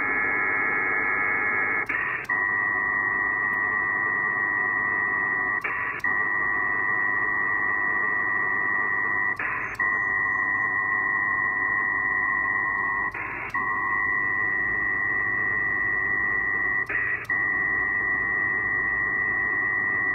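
Pactor-4 digital data signal from an HF radio's speaker: a dense, steady multi-tone warble, broken about every four seconds by a short, different-sounding burst. This is the ARQ rhythm of long data packets and brief acknowledgements in a WinLink transfer running slowly over a poor link with many retries.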